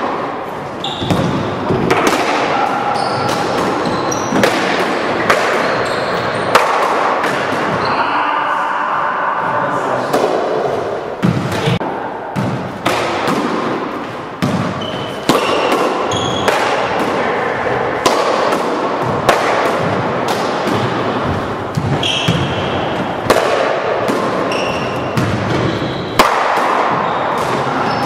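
Racquetball-style rally in an enclosed four-wall court: a rubber ball hit by racquets and striking the walls and floor again and again, each hit echoing off the walls. Short sneaker squeaks on the hardwood floor come in between the hits.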